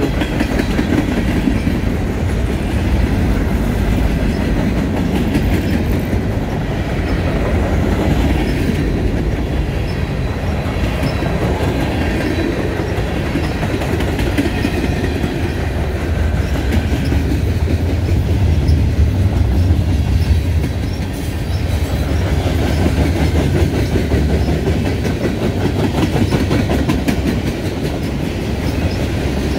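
Freight train cars (tank cars, hoppers and boxcars) rolling past at close range: a steady rumble of steel wheels on rail with a continuous clickety-clack over the rail joints.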